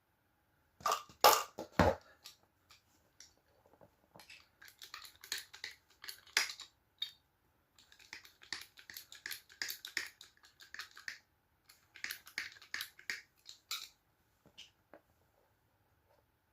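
Hand work on a heavy battery cable: a few sharp clicks and knocks about a second in, then repeated short scraping and crunching strokes that stop near the end.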